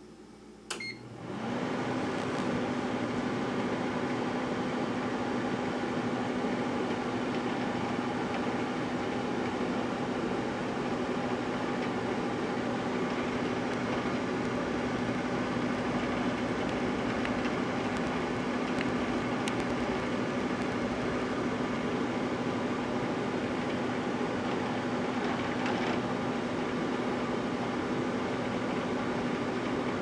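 Microwave oven started with a short beep about a second in, then running steadily with an even hum.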